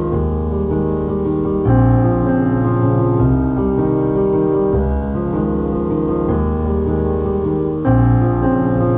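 Background music on a keyboard instrument: sustained chords that change about every second and a half, with louder new chords near the start and near the end.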